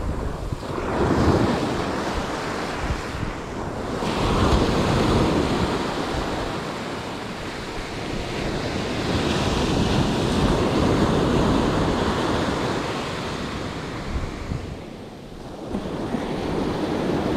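Ocean surf breaking and washing up a sandy beach, the noise swelling and fading with each wave every few seconds, with wind buffeting the microphone.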